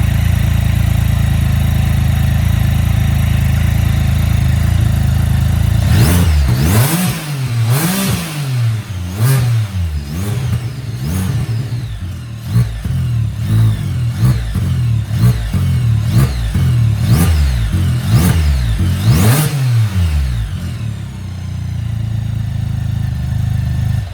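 Can-Am Spyder's engine through an Akrapovic Sinister muffler, idling steadily, then revved in a quick run of throttle blips, each one rising and falling in pitch, for about fourteen seconds before settling back to idle.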